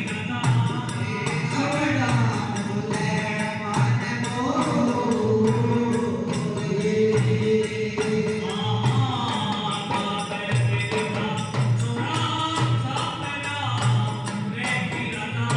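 Rajasthani-style devotional bhajan: a male voice singing over a steady drum beat of about one stroke a second and tambourine-like percussion.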